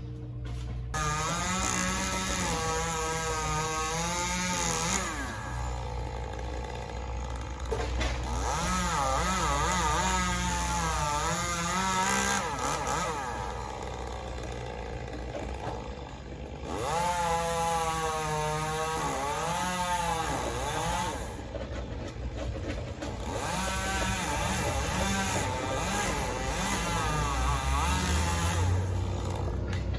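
Chainsaw running, its engine pitch rising and falling as it is revved in several spells of a few seconds, easing off briefly in between.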